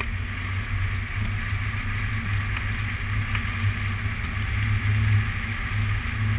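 Airflow buffeting the microphone of a camera on a hang glider in flight: a steady rushing wind noise with a low, unevenly pulsing rumble.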